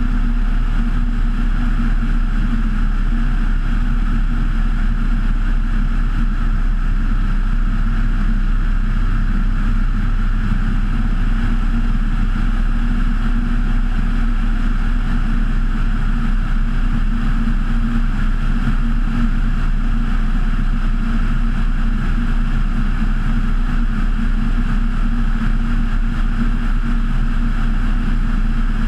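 Kitfox IV floatplane's engine and propeller running at a steady speed, a constant drone mixed with wind noise.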